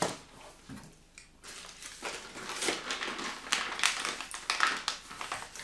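Packaging crinkling and rustling as a snack package is taken out of a box and handled: a small knock at the start, then a run of irregular crackles from about a second and a half in.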